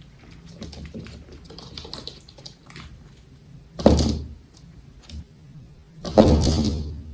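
Guinea pigs eating, a run of small crunching clicks, with two louder rustling scuffles about four and six seconds in.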